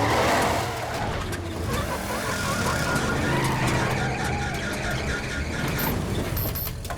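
Animated car engine running and revving as the car drives off, with a rising swell at the start.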